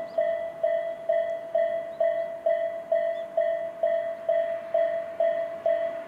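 Japanese railway level-crossing alarm, Tobu's electronic 'sound A' bell, ringing a steady repeated ding about twice a second. It warns that a train is approaching the crossing.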